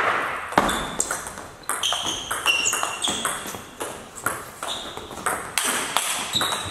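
Table tennis rally: the ball clicking sharply off the bats and the table, several hits a second, echoing in a large hall, with short squeaks of shoes on the sports floor in between.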